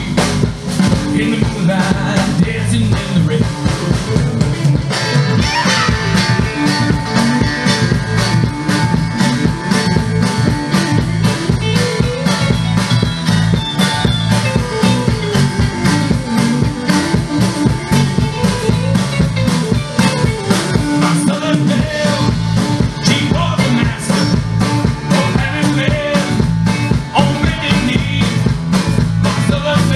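Live country-rock band playing through a PA: acoustic and electric guitars, bass guitar and drums, with a steady beat.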